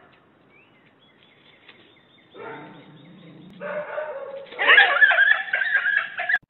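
Pet animal calling during a dog and cat standoff: faint low sounds from about two and a half seconds in, growing into loud calls that bend in pitch over the last two seconds and cut off suddenly.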